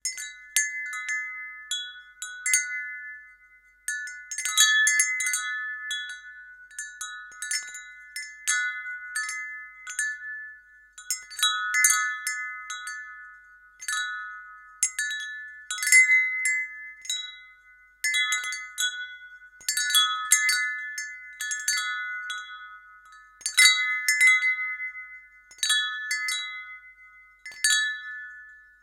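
Wind chime jangling irregularly, its tubes striking in loose clusters every second or two. Each cluster sets off a handful of high, clear notes that ring on and fade away.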